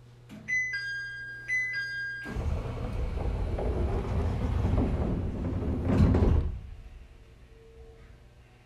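Door chime on an ET127 series electric train sounding twice, then the passenger sliding doors running shut for about four seconds and closing with a thud.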